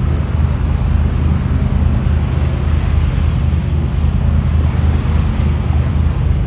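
Boat's engine running steadily, a low hum that pulses evenly, mixed with wind on the microphone and the rush of water along the hull.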